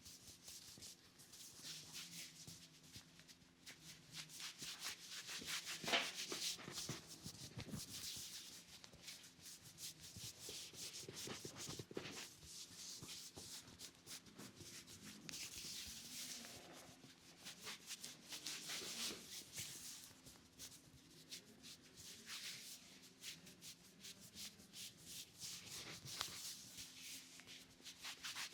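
Massage: hands rubbing and stroking over hair and skin in repeated soft swishing strokes, with one sharper click about six seconds in.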